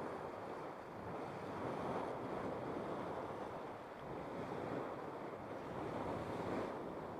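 Churning Cauldron hot spring churning and bubbling in a steady rush of water noise that swells and eases every couple of seconds.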